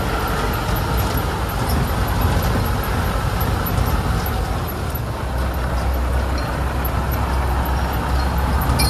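T-40AM tractor's air-cooled four-cylinder diesel running steadily as the tractor drives slowly along a rough track.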